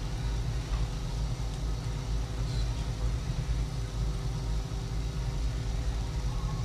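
Steady low rumble of operating-room equipment, with a constant hum of several steady tones over it and no break or change.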